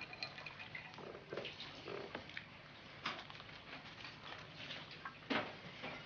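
Scattered light clinks and knocks of breakfast crockery being handled: china cup, saucer and coffee pot. A short ringing clink comes just after the start, and the sharpest knocks come about three and five seconds in.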